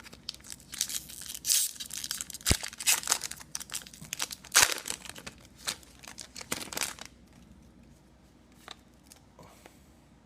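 A trading-card pack's foil wrapper being torn open and crinkled by hand for about seven seconds, then stopping; a few faint clicks follow.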